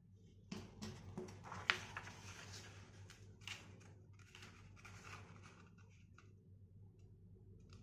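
A sheet of paper rustling and crackling as it is folded and creased flat by hand, with a few sharp crackles, the loudest about two seconds in. The handling dies away after about six seconds.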